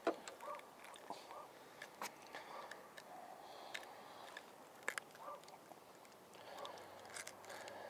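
Faint scattered clicks and soft rustles of hands handling a channel catfish held in fish grips while working the hook out of its mouth.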